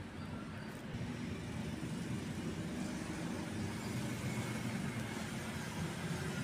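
Steady low rumble of background vehicle noise.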